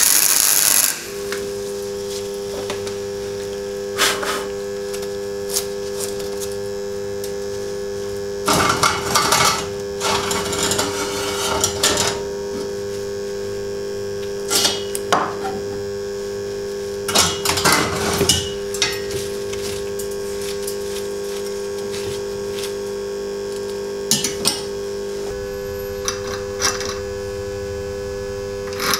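Welding arc crackling for about a second at the start, then a steady electrical hum, with scattered knocks and metallic clatter of steel square tubing and brackets being handled on a workbench.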